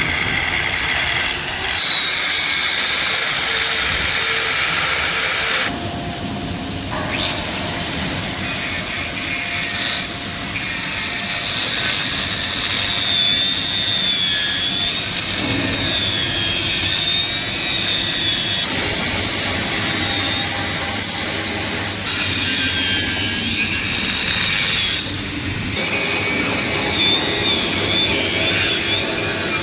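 A power tool running hard, with a high whine that drops in pitch and wavers as it is loaded. The sound changes abruptly several times.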